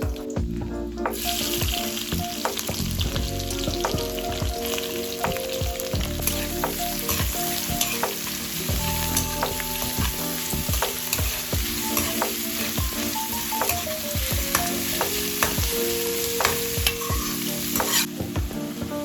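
Food sizzling as it fries in oil in a pan, stirred with a spoon that knocks and scrapes against the pan. The sizzle starts about a second in and cuts off near the end.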